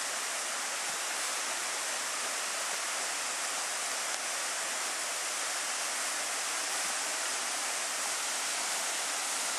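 Small forest waterfall: a steady, even rush of falling water.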